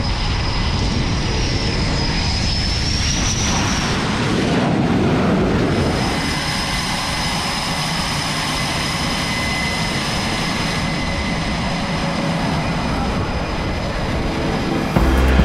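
F/A-18 Super Hornet jet engines running on a carrier flight deck: a loud, steady rush of jet noise with a thin high whine that rises briefly about two to three seconds in. A louder low rumble swells around five seconds in.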